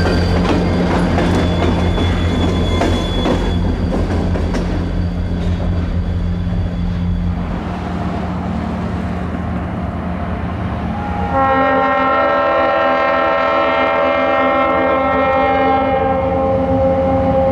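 Diesel locomotive rolling past with a steady low engine drone and its wheels clicking over the rail joints. About eleven seconds in, a locomotive air horn starts sounding one long held chord of several notes.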